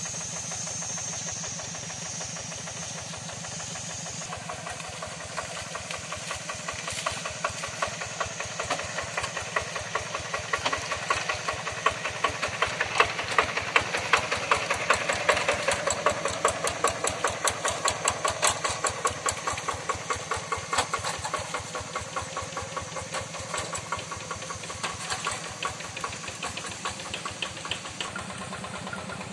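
Two-wheel hand tractor's single-cylinder diesel engine chugging steadily under load as it pulls its cage wheels through a flooded rice paddy, louder for a few seconds in the middle as it passes close.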